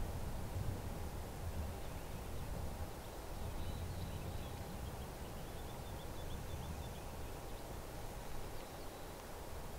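Low, steady outdoor rumble, with a faint quick series of high bird chirps in the middle.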